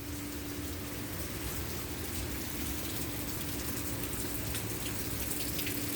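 Steady rain falling during a thunderstorm, an even hiss with a faint steady hum underneath.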